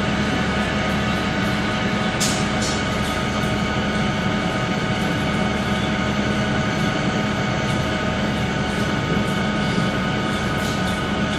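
Machine tool running steadily during the machining of a trunnion shaft, a constant hum with a couple of faint ticks about two seconds in.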